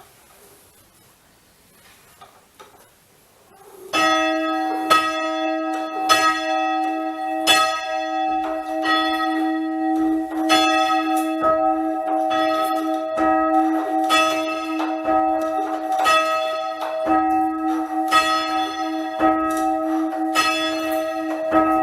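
A church tower bell being rung up by hand on its rope from the down position. After a few quiet seconds with faint knocks, the clapper starts striking about four seconds in, a little under once a second, each strike ringing on into the next. The bell is half-muffled, with a leather cap on one side of the clapper, so alternate strikes are clear and duller.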